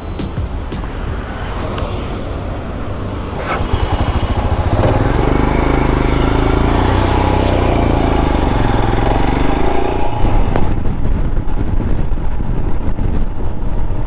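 Royal Enfield Himalayan's single-cylinder engine running while the motorcycle rides along in traffic. It gets louder about four seconds in, holds a steady note for several seconds, and turns noisier and more uneven from about ten seconds on.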